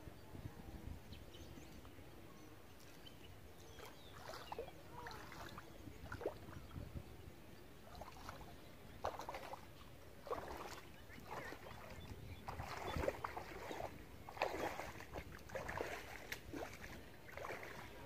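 Feet wading through a shallow, muddy stream: irregular sloshing and splashing steps that begin a few seconds in and come more often and louder in the second half.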